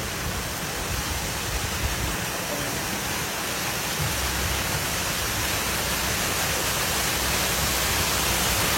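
Water rushing steadily into a lake, a dense even hiss that grows slightly louder near the end.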